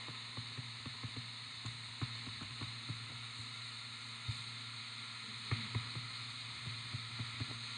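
Low steady hum and hiss with scattered soft taps of a stylus on a touchscreen as a word is handwritten.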